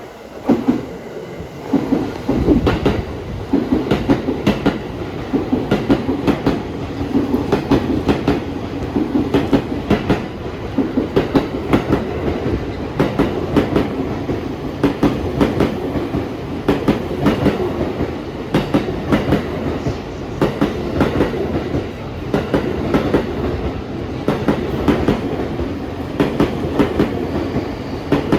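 JR East E231-1000 series electric train of fifteen cars passing through a station without stopping. Its wheels clack over the rail joints in a steady run of sharp beats over the rolling rumble. The clacking builds up about two seconds in.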